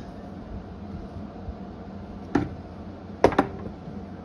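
A sharp click about two seconds in, then a quick pair of clicks near the end: small hard objects knocked or set down on a wooden tabletop. A steady low hum sits under it.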